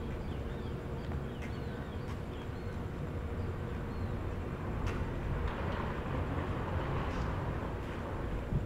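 Outdoor street ambience: a steady low rumble like distant traffic, with short high chirps during the first two seconds and a few faint clicks.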